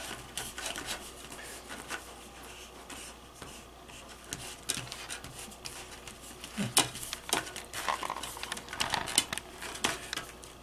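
Hands pressing and rubbing floured pizza dough into a thin aluminium foil pan: soft rubbing with scattered small clicks and crinkles from the foil, busier in the second half.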